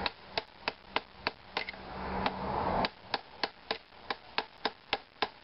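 Quick, light hammer taps, about three a second, on a 16 mm spark-plug socket, driving a new crankshaft bearing about a millimetre deeper into its housing in a Solex 5000 engine.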